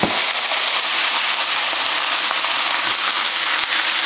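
Raw chicken pieces sizzling and crackling in hot oil with garlic, ginger and cumin, just dropped into the pan: a steady hiss with scattered sharp pops.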